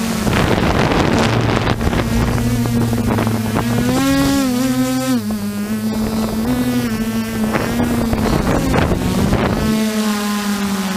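Brushless motors and propellers of an F550 hexacopter humming steadily, heard from the camera mounted on the craft. The pitch rises briefly about four seconds in and then settles back. Wind rushes over the microphone until shortly before the end.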